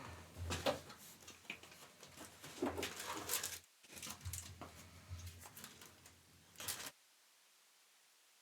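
Crinkling, rustling and tearing of trading-card packaging as packs are handled and ripped open, with a brief pause about three and a half seconds in; it cuts off abruptly near the end.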